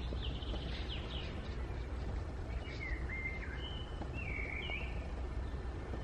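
Small birds giving short whistled notes and chirps, a quick cluster in the first second or so and a few gliding whistles around the middle, over a steady low background rumble.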